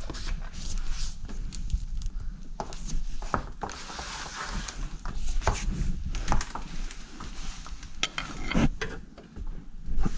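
Scattered knocks and clicks of hand tools and metal parts being handled, with rubbing and a short rustle about four seconds in.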